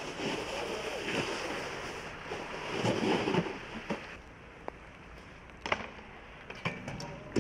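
Snowboard sliding and scraping over wet snow and slush, a rough hiss that swells around three seconds in. Quieter after that, with a few sharp knocks near the end as a board hits a metal handrail.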